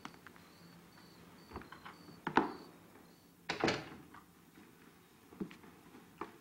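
A door being opened and shut: a sharp latch click about two and a half seconds in, a longer, louder knock about a second later, and a few fainter knocks and clicks around them.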